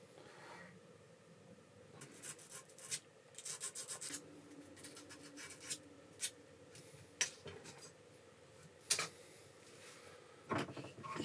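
Short scraping strokes of hand filing or abrading on the knife, in a quick run about two seconds in, followed by a few separate clicks.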